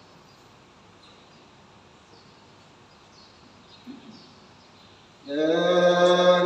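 Quiet hall ambience with a faint knock, then about five seconds in a man's voice comes in loud, chanting in Arabic on one long held note: the imam leading the prayer.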